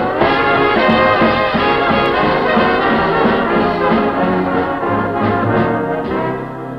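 Orchestral cartoon title music with prominent brass, tapering off near the end.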